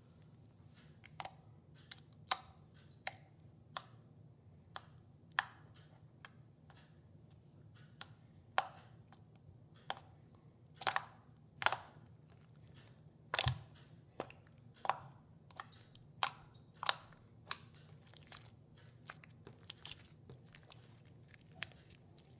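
Glossy blue slime being poked and pressed with the fingers, trapped air bursting out of it in sharp, separate pops, irregular and roughly one a second, loudest around the middle. Near the end, as the slime is squeezed and folded by hand, the pops give way to softer, quicker crackling.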